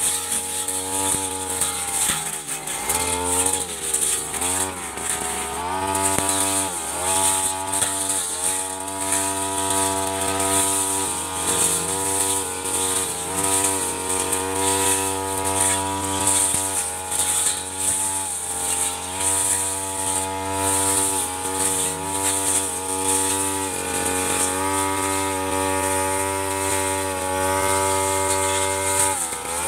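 Stihl 3001 two-stroke backpack brush cutter with a large blade running at high revs while cutting grass. Its pitch dips and recovers again and again, most often in the first ten seconds.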